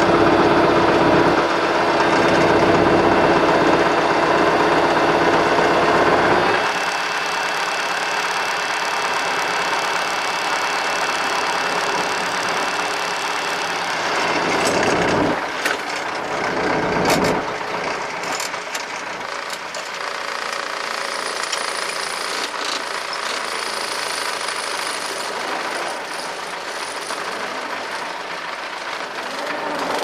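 MTZ-82 tractor's four-cylinder diesel engine running, heard from inside the cab. It runs at higher revs for the first six seconds or so, then drops to a lower, steadier run. A few sharp knocks and clatters come about halfway through.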